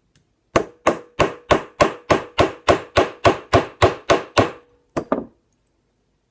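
Brass-headed hammer tapping a tight pin into a polymer pistol frame, fourteen even strikes at about three a second, then two quick taps.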